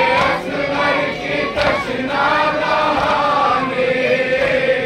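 A group of men singing a noha, a Shia mourning lament, in unison, their voices holding long wavering notes.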